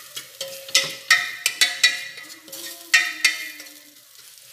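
A wooden spoon stirs garlic frying in oil in an aluminium pressure-cooker pot, scraping and knocking against the pot, with a faint sizzle underneath. The knocks come several times and leave a short ringing. The stirring dies down near the end. The garlic is just reaching golden, the point for adding colorau.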